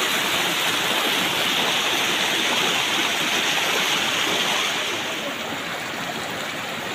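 Shallow rocky stream rushing over stones and small cascades: a steady hiss of running water, easing slightly about five seconds in.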